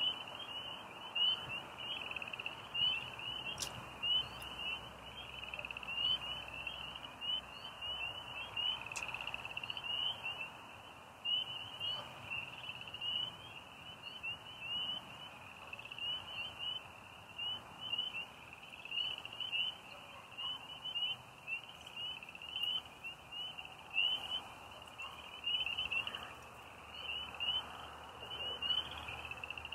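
Night chorus of frogs and crickets: dense, rapid chirping at one steady high pitch, with no let-up.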